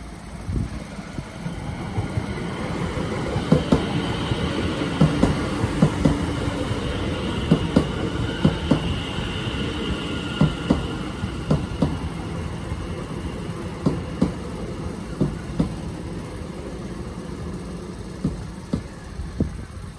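Greater Anglia class 720 Aventra electric multiple unit running over a level crossing, its wheels clacking over the rail joints in repeated sharp knocks, often in pairs, over a steady rumble. A high whine rises and fades about halfway through.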